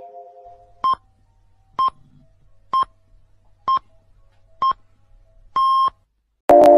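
Radio time signal: six short beeps about a second apart, the sixth held longer, marking the top of the hour before the news. Just before the end, loud music starts.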